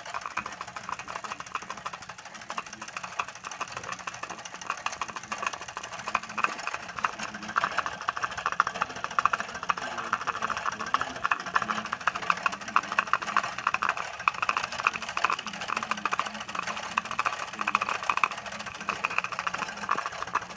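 Model steam engine with a double-acting cylinder running fast, driving Erector set gearing with a rapid, even mechanical beat. It gets louder about six seconds in.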